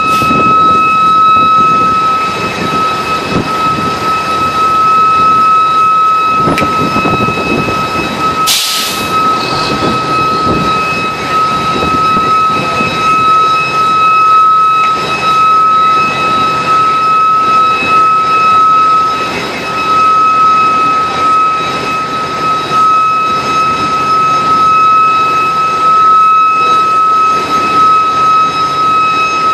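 Heavy diesel engines running hard at the roadside while a fire engine pumps a long hose stream, with a steady high-pitched whine throughout. A short hiss comes about eight and a half seconds in.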